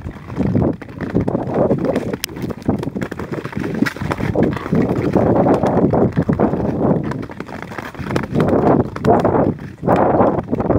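Ice skates scraping over natural ice in rhythmic strides, a rough scrape with each push, with a few sharp clicks.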